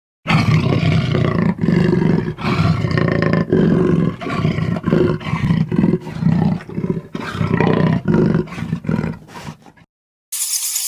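A large animal's deep roaring calls, one after another with short breaks between them, fading out near the end. Just before the end a different, steady rattling noise starts abruptly.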